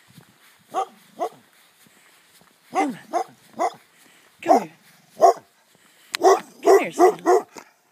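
A dog barking: single barks spaced out over the first few seconds, then a quick run of about six barks near the end.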